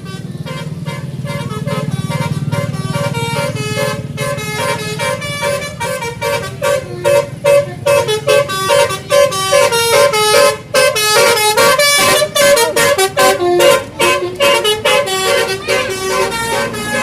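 A bus's telolet basuri melodic horn playing a rapid tune of quick stepped notes, turning choppier with short repeated toots from about six seconds in, over a low engine rumble.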